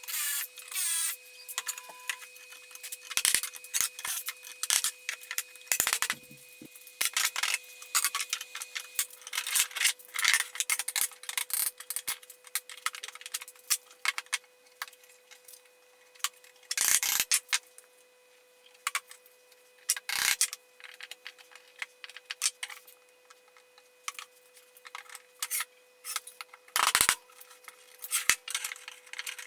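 Hand work in a workshop: irregular light clicks, clinks and rubbing as tools and small parts are handled, with a few heavier knocks, over a steady faint hum.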